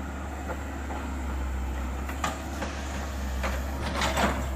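Excavator diesel engine running steadily with a low drone, with a few sharp knocks about two seconds in and several more near the end.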